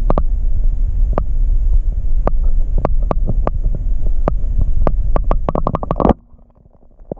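Muffled underwater sound of an airsoft spring pistol (FNS-9 replica) being cocked and fired underwater: a steady low rumble with sharp clicks, scattered at first and then in a quick run. The sound drops suddenly about six seconds in.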